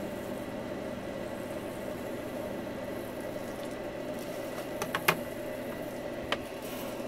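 Steady low hum of machinery at a workbench, with a cluster of light clicks and taps about five seconds in and one more a little over a second later, as a soldering iron is handled over a circuit board.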